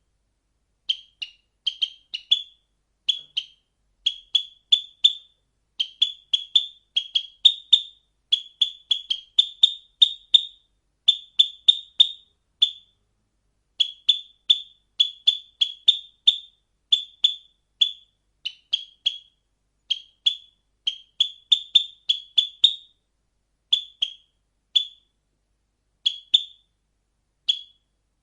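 A bird giving short, high chirps, often in quick runs of two to four, thinning out near the end.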